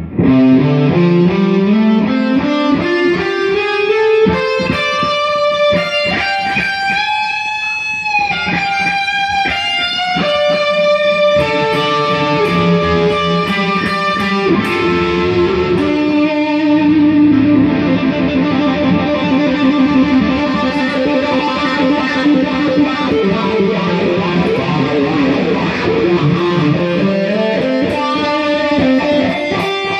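Electric guitar playing pentatonic blues scale licks: a rising run of single notes at the start, bent notes about a third of the way in, and fast repeated picking past the middle.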